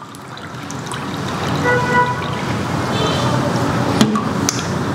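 Water poured from a glass jug into a tall glass holding rice, the pouring noise growing louder as the glass fills. A sharp click comes about four seconds in.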